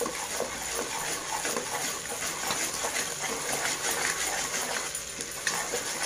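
Ginger-garlic paste sizzling steadily in hot oil in a large metal pan, stirred with a perforated metal skimmer that scrapes and taps the pan lightly; the paste is being fried to drive off its raw smell.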